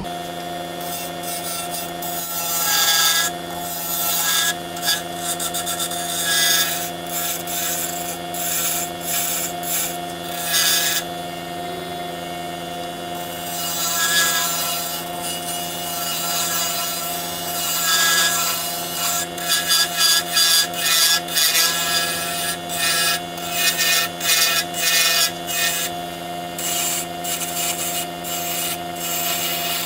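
Small wood lathe motor starting up and running with a steady hum, while a carbide turning tool scrapes a zebrano pen blank on the mandrel in repeated, uneven bursts, roughing off the bulk of the wood.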